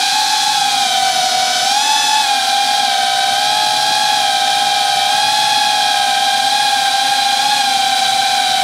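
A 5-inch FPV cinelifter drone's motors and propellers whining steadily in flight, its pitch wavering slightly with a small dip and rise about two seconds in.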